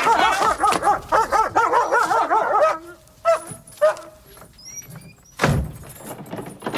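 A dog barking and snarling in a rapid run for nearly three seconds, then a couple of short yelps, then a loud thump about five and a half seconds in.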